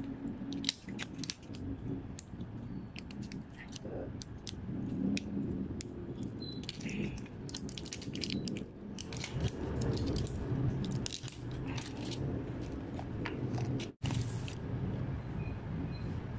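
Tablets and capsules being pushed out of plastic-and-foil blister packs: a run of sharp clicks and foil crackling from handling in the hands.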